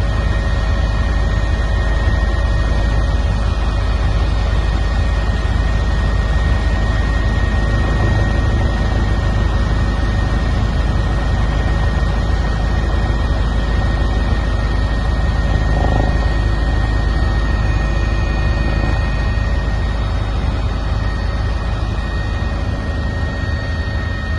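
Helicopter running steadily, a deep continuous rotor drone with a steady high turbine whine over it.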